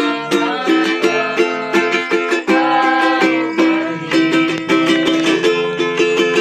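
Instrumental music on plucked string instruments, repeated picked notes over a steady beat.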